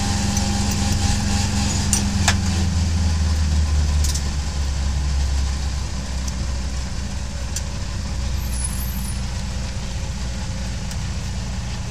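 BMW 2002's four-cylinder engine running at low revs as the car rolls slowly up to a stop, heard from inside the cabin; the engine note drops a little about four seconds in and settles toward idle.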